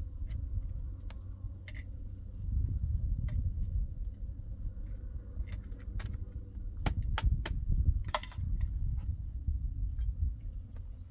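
Scattered light clicks and clinks of small hard objects being handled, several close together about two-thirds of the way in, over a steady low rumble.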